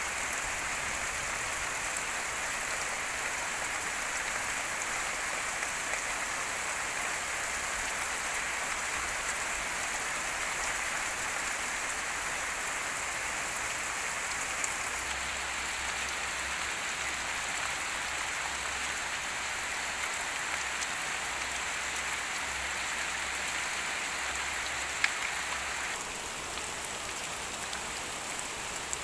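Steady rain falling, with scattered individual drops ticking through it and one sharper, louder drop near the end.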